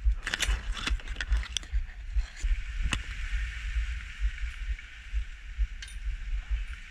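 Wind buffeting the microphone as a steady low rumble, with palm fronds rustling and a few sharp clicks and knocks from the snake tongs and fronds being handled.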